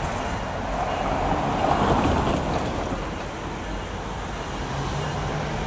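Diesel locomotives idling with a steady engine rumble, swelling briefly about two seconds in.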